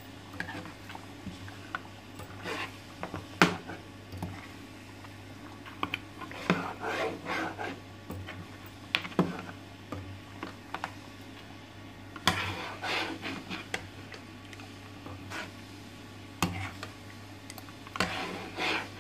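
Metal ladle stirring a thick meat curry in a non-stick pot, scraping and knocking against the pot at irregular moments over a steady low hum.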